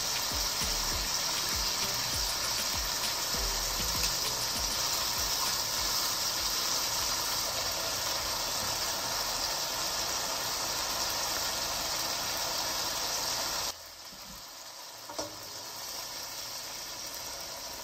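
Bite-sized chicken thigh pieces sizzling in hot oil in a nonstick wok, a steady frying hiss. About fourteen seconds in the sizzle abruptly drops to a softer level, with a single click a moment later.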